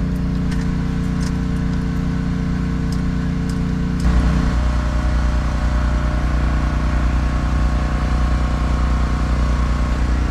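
A vehicle engine idling steadily. About four seconds in, its note drops slightly and the low rumble gets louder, with a few light clicks before that.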